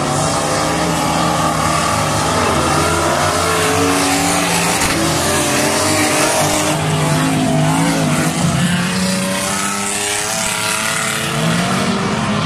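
Several stock car engines running hard as the cars race past on the dirt track, their engine notes overlapping and rising and falling as the drivers rev and lift.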